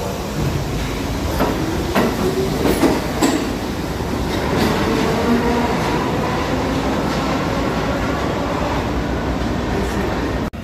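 New York City subway train running through an underground station: a continuous rumble of wheels on rail, with a few sharp clacks over the rail joints in the first few seconds. The sound breaks off abruptly near the end.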